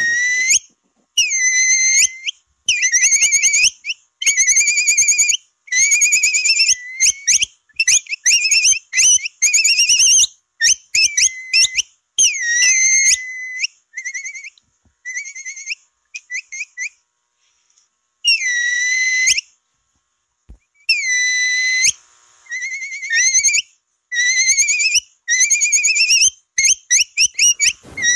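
Capybara whistle call used to attract capybaras: repeated high-pitched whistled chirps in quick runs, each with a trilling wobble. After a short pause past the middle come a few longer held whistles about a second each, then the quick chirps return.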